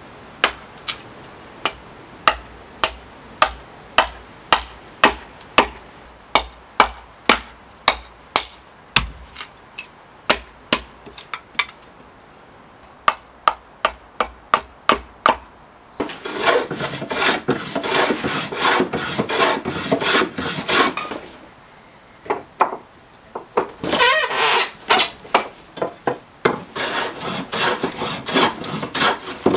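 Hatchet blade knocking into an upright elm billet on a chopping block, sharp chops about two a second, splitting and trimming it. About halfway through this gives way to a small hand plane shaving wood at the bench, a run of rasping strokes with a short pause in between.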